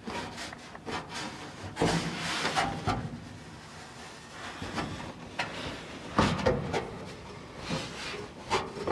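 Rear window glass and its rubber gasket being pressed and worked by hand into the car's body opening: irregular thumps, knocks and rubbing, with a longer scraping rush about two seconds in and a sharper knock near the end.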